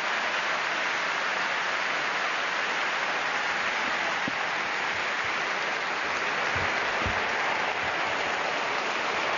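Large audience applauding steadily, a dense continuous sound of clapping.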